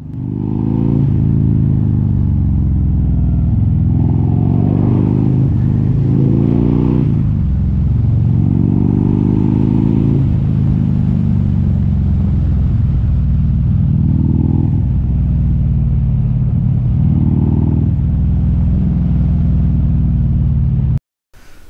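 Harley-Davidson V-twin motorcycle engine under way. Its pitch climbs and then drops back sharply several times as it accelerates and changes gear. It cuts off suddenly near the end.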